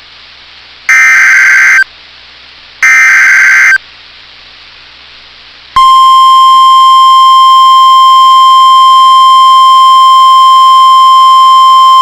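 The last two bursts of an Emergency Alert System SAME header, the harsh buzzy digital data squawk, each about a second long with about a second of quiet between them. From about six seconds in comes the steady single-pitch NOAA Weather Radio 1050 Hz warning alarm tone, which announces a warning, here a flash flood warning.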